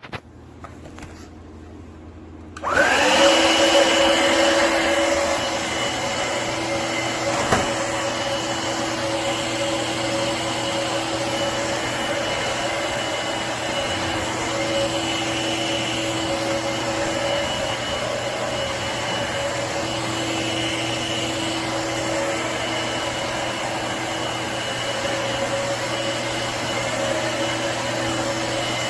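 Shark SV1106 Navigator Freestyle cordless stick vacuum switched on nearly three seconds in. Its motor spins up with a short rising whine, then runs steadily with a constant whirr and whine, and there is one sharp click a few seconds later.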